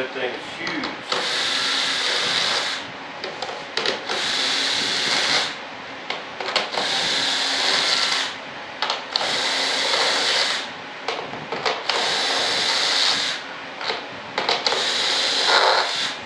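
A handheld power tool grinding along the edge of a freshly demolded composite RC jet wing, in about six passes of a second and a half each with short pauses between.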